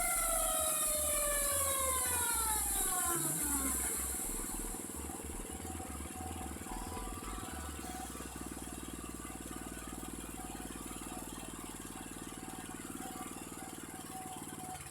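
A motor winding down after being switched off, its pitch falling steadily over the first three to four seconds. A quieter steady hum follows.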